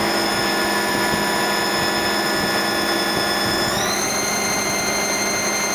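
Star JNC25 CNC Swiss-type lathe running, its inverter-driven headstock spindle giving a steady whine of several tones. The whine glides up to a higher pitch about four seconds in.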